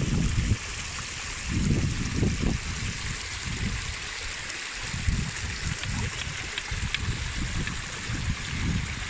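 Rushing water, a steady hiss, with irregular low gusts of wind buffeting the microphone.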